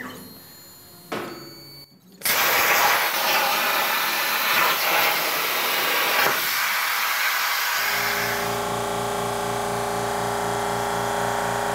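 Hypertherm Powermax 30 XP plasma cutter on a CNC table: the arc fires suddenly about two seconds in and cuts 0.057 in sheet steel with a loud, steady hiss of arc and air. About eight seconds in the cut ends; the air keeps hissing as post-flow over a low, rapidly pulsing hum.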